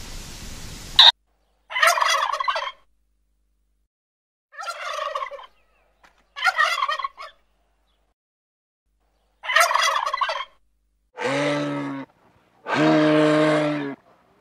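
Turkeys gobbling in four short bursts spread over several seconds, then two long, low, steady moose calls near the end.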